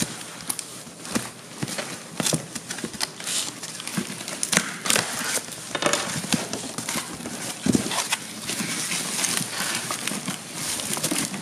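Packing tape and a plastic shipping wrapper being torn and pulled off a cardboard box: irregular crackling and rustling with sharp clicks and knocks.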